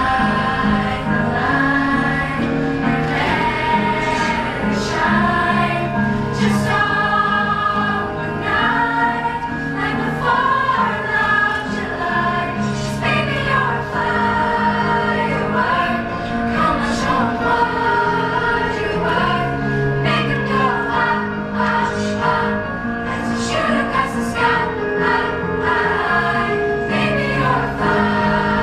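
A school chorus of girls and boys singing together.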